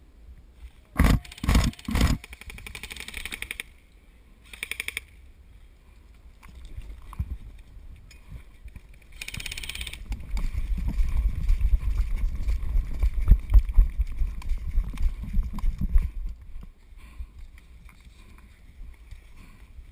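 Airsoft rifle firing: a few sharp shots about a second in, then rapid full-auto bursts of ticking shots. Later comes a stretch of heavy low rumble on the microphone.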